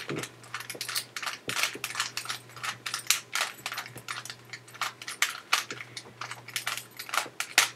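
Plastic Rubik's Cube having its layers twisted quickly by hand: a rapid, irregular run of sharp clicks and clacks.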